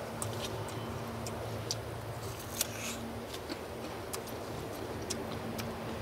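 Crisp, irregular crunching clicks of raw jicama root being chewed, with one longer crunch about two and a half seconds in. A faint steady low hum runs underneath.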